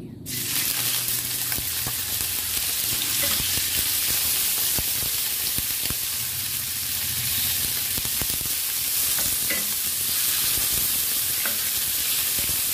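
Slices of raw pork sizzling in hot cooking oil in a pan, the sizzle starting suddenly as the meat goes in and then holding steady. A wooden spatula stirring and spreading the pieces adds a few light taps and scrapes.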